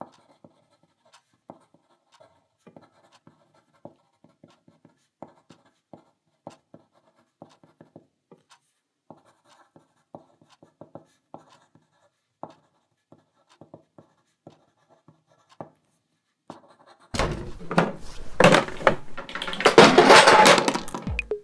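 Faint, scattered pencil taps and scratches on paper at school desks. Near the end, a sudden loud crash and clatter lasting about four seconds as a school chair and desk tip over with a student falling to the floor.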